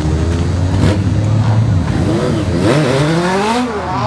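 Race car engines running on the track, a steady hum at first, then revving up with rising pitch about two and a half seconds in and dropping off sharply near the end.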